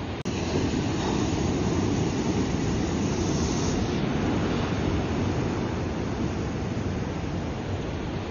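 Ocean surf washing onto the shore: a steady rushing, broken by a brief dropout just after the start.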